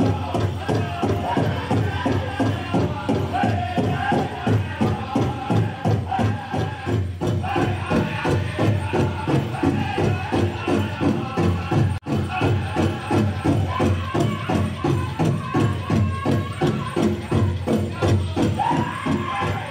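Powwow drum group singing a chicken dance song over a large shared drum struck in a fast, even beat, the voices pitched high above the drum. A brief dropout about twelve seconds in.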